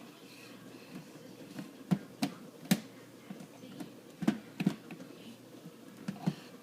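Half a dozen sharp knocks and clicks at uneven intervals, the loudest near the middle, over faint room noise.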